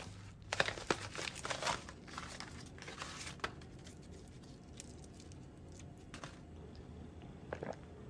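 Irregular crinkling and rustling with small sharp clicks, busiest in the first few seconds, then sparser.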